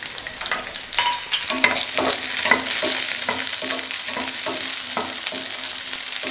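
Whole peeled small onions (shallots) sizzling in hot oil in a nonstick frying pan, stirred with a wooden spatula that scrapes and taps the pan in quick repeated strokes, about two to three a second.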